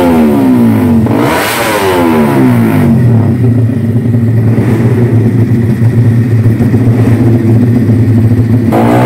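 Race-prepared underbone motorcycle engine on a paddock stand, blipped so that the revs fall away twice, then settling into a steady idle, and revved up again near the end.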